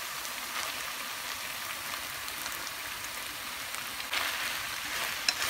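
Stir-fried beef, fresh rice noodles and bok choy sizzling in a hot pan: a steady hiss with scattered crackles that grows louder about four seconds in, and one sharp tick near the end.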